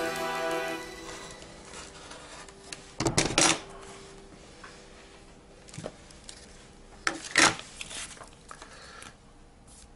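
Two short rasping strokes about four seconds apart, with a few small handling clicks between: a sheet of sandpaper being cut along the edge of a clear plastic ruler.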